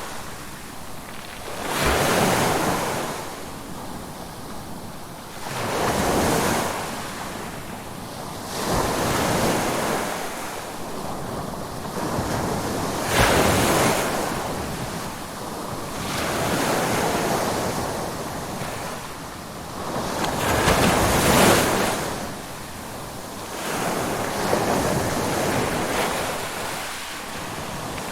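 Ocean waves breaking on the shore, surging and receding in about seven swells, with the hiss of surf between them.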